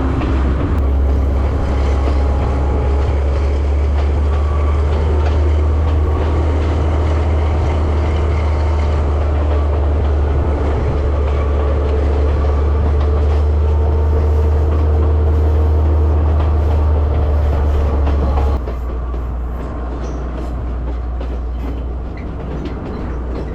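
Passenger train running on the rails, with a steady heavy low rumble and wheel clatter. About three-quarters of the way through, the low rumble drops off abruptly and the sound gets a little quieter.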